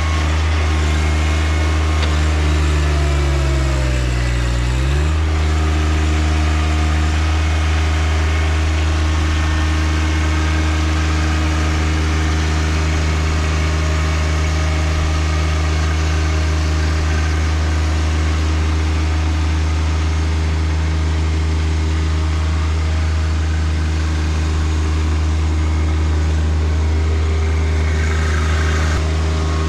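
John Deere 1025R compact tractor's three-cylinder diesel running steadily at working speed. About three seconds in, the engine note sags for a couple of seconds under load, typical of backhoe hydraulics pulling it down, then picks back up.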